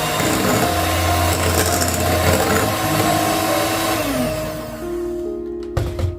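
Electric mixer motor running steadily, then slowing and stopping about four seconds in, followed by a couple of knocks near the end. Soft background music plays underneath.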